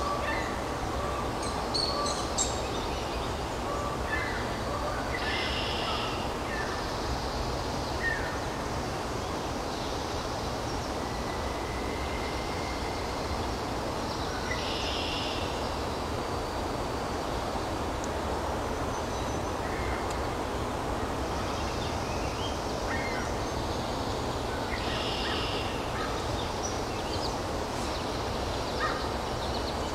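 Woodland ambience: a steady background hiss with scattered short bird calls and chirps, and a few brief bird song phrases.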